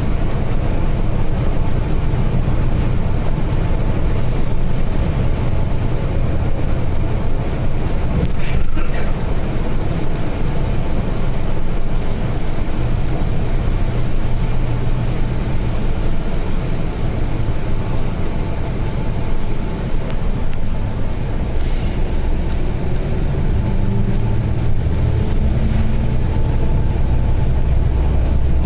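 Volvo B8 bus running along the road: steady engine and road rumble, a single knock about eight seconds in, and the low rumble swelling near the end.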